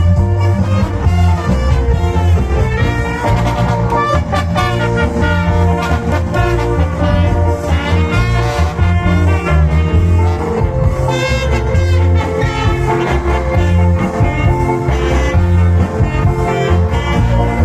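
Loud cha-cha dance music played through a large fiesta sound system, with a heavy, pulsing bass.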